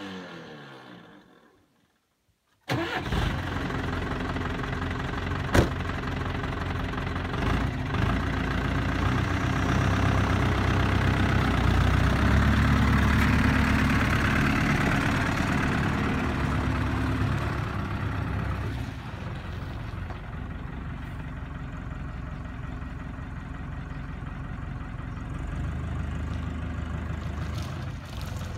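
The four-cylinder diesel engine of an Iveco 75E14 7.5-tonne lorry, running as the lorry drives past and away. It comes in suddenly about three seconds in, gets louder in the middle, then settles lower. There is a single sharp click a few seconds in.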